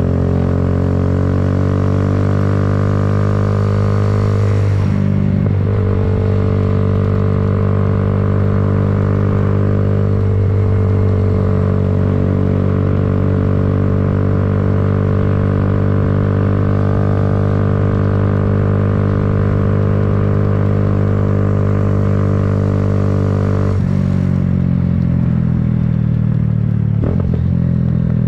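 Kawasaki Z125's single-cylinder engine running under way: the pitch climbs, breaks briefly about five seconds in as it changes gear, holds steady at cruising speed, then falls away near the end as the throttle comes off.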